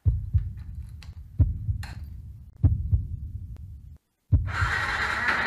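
A heartbeat sound effect: three double low thumps, about 1.3 s apart. After a short silence a little over four seconds in, a motorcycle's electric starter cranks the engine with a steady whirr.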